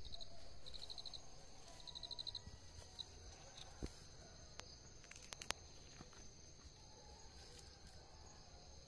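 Steady high-pitched insect drone, with short rapid chirping trills in the first couple of seconds. A few light clicks and rustles come from handling the bundled banana leaves around the middle.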